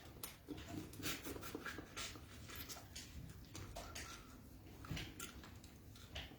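A person chewing food close to the microphone, with many short wet clicks and smacks of the mouth coming at an irregular pace.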